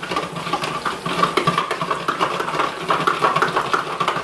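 Vegetables and freshly added coconut milk sizzling and crackling in a hot non-stick frying pan, over a steady hum.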